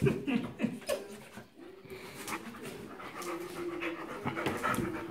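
A yellow Labrador retriever and a black-and-tan puppy playing, with dog panting and short play noises, loudest in the first second.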